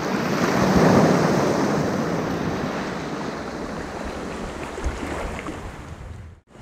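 Sea surf washing on the shore, with wind on the microphone: a wave swells about a second in and slowly dies away, and the sound cuts off abruptly near the end.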